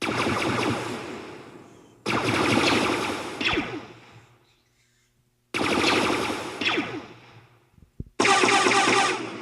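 Star Wars blaster fire sound effects: four separate volleys of rapid blaster shots, each starting abruptly and fading away over about two seconds.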